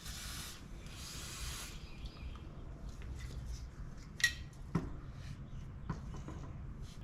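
Aerosol can of penetrating oil spraying in two short hissing bursts, followed by scattered light clicks and taps, the sharpest about four seconds in.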